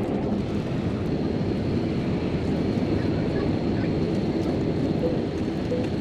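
Steady engine and airflow noise of a jet airliner in flight, heard from inside the passenger cabin.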